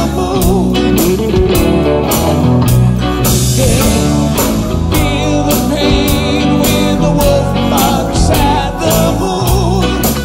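Blues-rock song: electric guitar over bass guitar and a steady drum beat.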